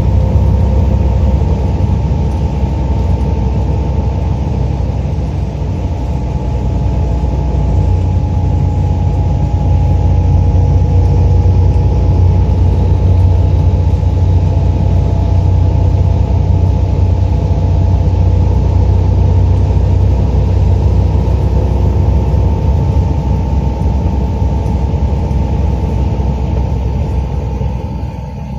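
Steady low rumble of a vehicle travelling at motorway speed, heard from inside: engine and road drone with a faint steady whine and tyre noise on the wet road surface. It eases off near the end.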